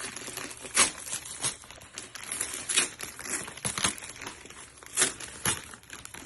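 Packaging being handled and unwrapped, a continuous crinkling rustle with sharp crackles every second or so, the loudest a little under a second in and about five seconds in.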